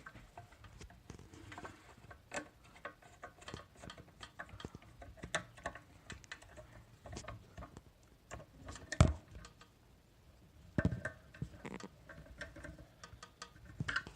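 Scattered small clicks and taps of screws and a screwdriver being worked on an electronic safe's parts, with one sharp, louder knock about nine seconds in.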